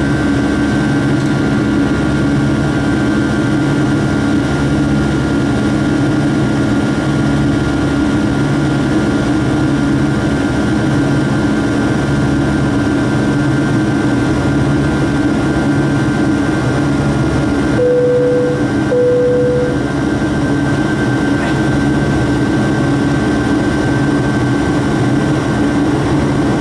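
Rolls-Royce RB211 turbofan engines of a Boeing 757-200 heard inside the cabin during the climb: a steady drone with a low hum and a thin high whine. About two-thirds of the way through, two short chime tones sound one after the other.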